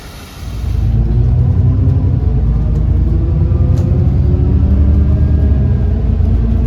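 Alexander Dennis Enviro400 MMC double-decker bus's diesel engine and drivetrain running under way. It comes in sharply about half a second in and holds as a loud, steady low rumble with an engine tone over it.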